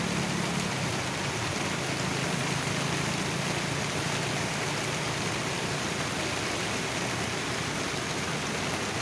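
Waterfall water rushing in a steady, even wash. A low hum underneath fades away over the first few seconds.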